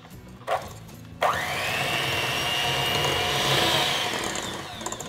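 Electric hand mixer switched on about a second in, its motor whining up to speed and running steadily as the beaters whisk eggs and sugar in a glass bowl. The sound tapers off near the end. A short knock comes just before it starts.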